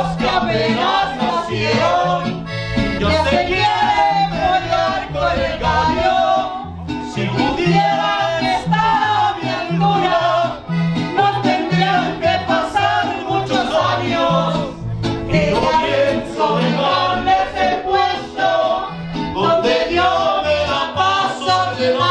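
Live band: a woman singing into a microphone, backed by an accordion and a guitarrón playing a steady alternating bass line.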